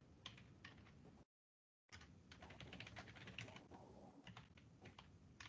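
Faint keyboard typing, a run of quick irregular key clicks heard through a video-call line, cut to silence for about half a second partway through.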